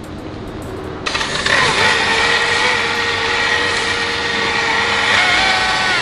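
Electric rotary polisher with a foam pad switched on about a second in, spinning up and then running steadily with a whine as it buffs a hazy headlight lens with polishing compound. About five seconds in, the whine steps up in pitch as the speed rises.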